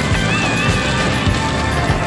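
Background music with a steady low beat and sliding melodic tones.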